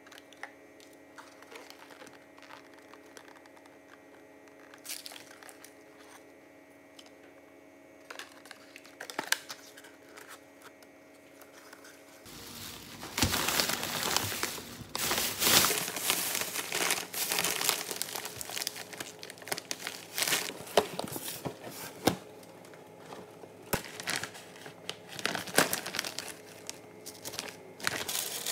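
Soft handling of a cardboard gift box, with a few light taps and clicks over a faint steady hum. About halfway in, a thin plastic shopping bag is grabbed and rustles and crinkles loudly as it is handled and emptied. Near the end a plastic snack bag crackles.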